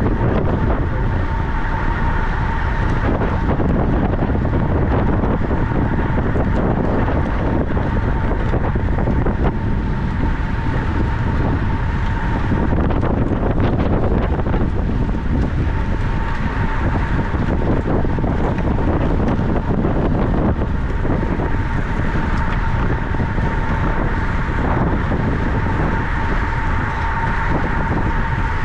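Heavy, steady wind buffeting on the microphone, with a thin whine held at one pitch above it.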